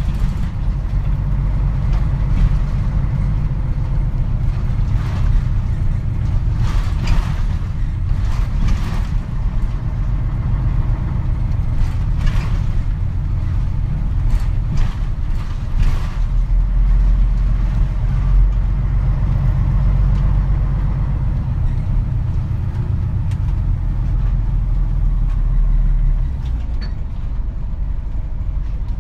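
Onboard running sound of a Mitsubishi Fuso Aero Star (KC-MP747) diesel city bus: a steady, deep engine drone with scattered rattles and knocks from the cabin.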